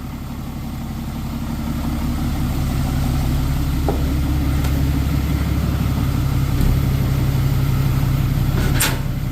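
Dodge pickup's turbo-diesel engine idling steadily, left running just after an oil change. It grows louder about two seconds in, and a sharp knock near the end is followed by a slightly quieter idle.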